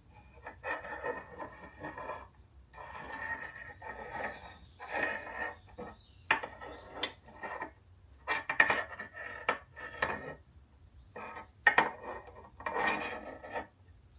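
Hard objects being handled: irregular rubbing and scraping in bursts, with a few sharp clinks and knocks.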